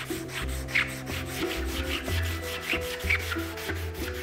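A piece of amber rubbed by hand back and forth on an abrasive block, in repeated short scraping strokes, over background music.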